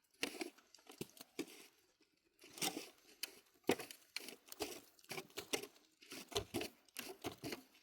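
An irregular run of short tearing and crunching noises, like something being torn, crumpled or crunched by hand, with sharp crackles scattered throughout.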